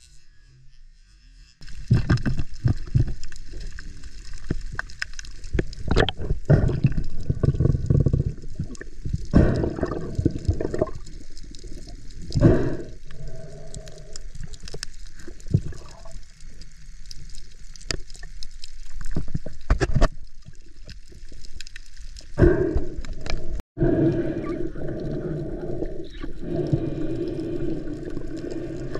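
Muffled underwater water noise and bubbling from a spearfishing diver, coming in irregular surges that start about two seconds in.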